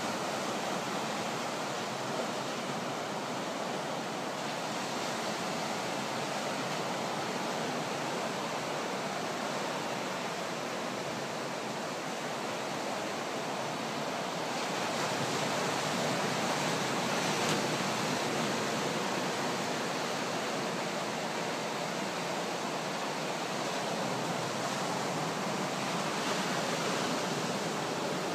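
Ocean surf breaking on a sandy beach: a steady, continuous wash of waves, a little louder from about halfway through.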